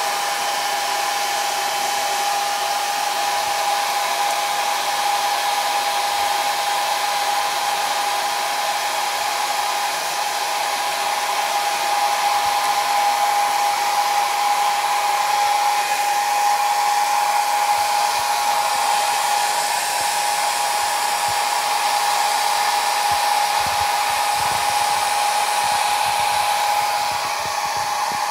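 Hair dryer running steadily, a rushing blow with a steady high whine, used to dry a dog's coat.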